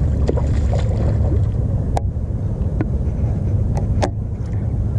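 Steady low rumble of wind on the microphone over open water, with three sharp clicks about two, three and four seconds in.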